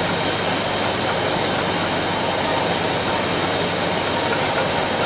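Steady machine noise of a garment factory floor: an even, unbroken din.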